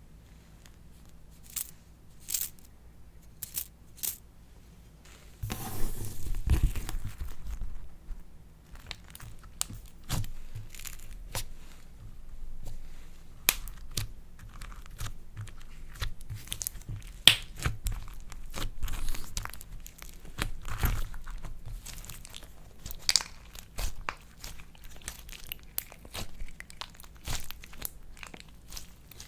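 Slime being handled and mixed by hand: sticky crackling and tearing sounds with many small sharp pops and clicks, sparse for the first few seconds and then denser.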